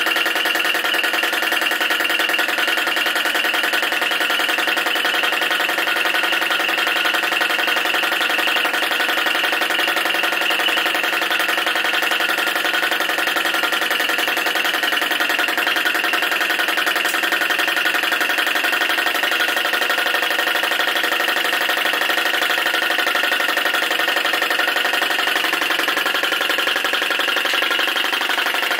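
Flame licker vacuum engine running fast and steady under load, belt-driving a small generator: an even, rapid clatter with a buzzing tone that holds without change.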